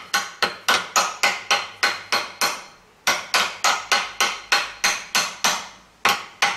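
Hammer tapping a metal output flange onto the splined output shaft of a Mercedes 722.3 automatic transmission to seat it. Quick, ringing strikes come about four a second in three runs, with brief pauses a little under three seconds in and again near the end.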